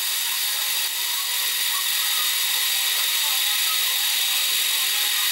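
Warco Super Mini Lathe running with its chuck spinning, a steady high whine from the machine.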